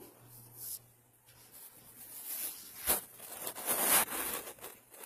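Rustling and scraping right against the phone's microphone, in uneven bursts that grow louder about three to four seconds in, as the phone is handled and the cat's fur brushes over it.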